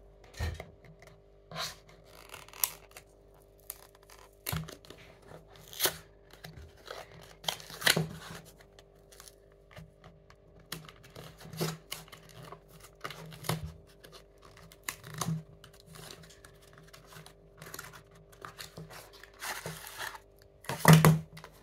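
Cardboard box of a trading-card starter deck being torn open by hand: irregular rips and scrapes with short pauses, and a louder rip near the end.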